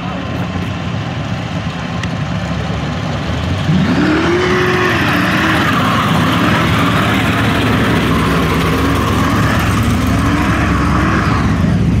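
Supercharged V8 of a 1971 Dodge Demon rumbling low, then revving up sharply about four seconds in and held high with a wavering pitch during a burnout. The spinning rear tyres squeal until near the end.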